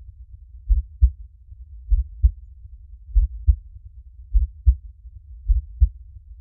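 Slow human heartbeat, about fifty beats a minute, each beat a low double thump (lub-dub), five beats in all, over a faint steady low rumble.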